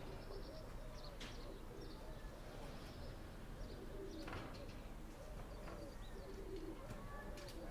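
Doves cooing over and over in low, rolling coos, with small birds chirping high above them and a few faint clicks.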